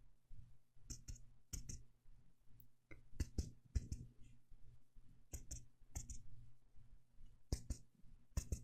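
Fingertips tapping in an ASMR roleplay of direct chest percussion: sharp taps, mostly in quick pairs, about one pair a second with short pauses.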